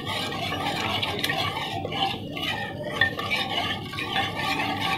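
A spoon stirring cooked tur dal in an aluminium pressure cooker: the thick liquid swishes continuously, with a few light knocks of the spoon against the pot.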